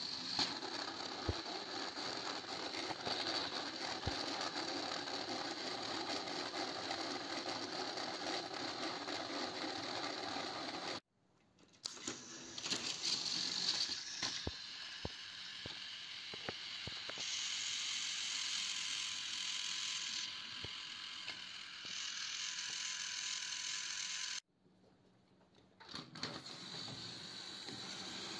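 Small electric motors and plastic gearboxes of battery-powered toy trains on plastic track, whirring and rattling steadily. The sound cuts off suddenly twice and comes back with a few clicks.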